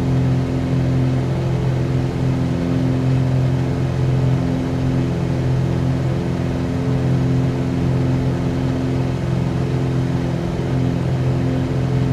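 Steady drone of a Cessna 182Q's engine and propeller heard inside the cockpit on final approach, holding an even pitch and level.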